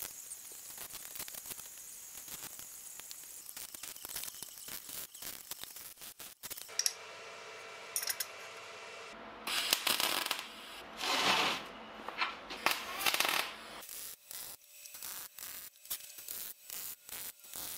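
Steel parts clicking and clinking as they are handled and fitted onto a steel frame. A few louder noisy bursts come midway.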